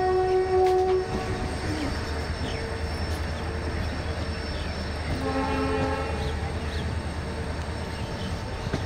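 Indian Railways locomotive horn sounding and cutting off about a second in, over the steady running noise of trains on parallel tracks. A second, lower-pitched horn sounds for about a second roughly five seconds in.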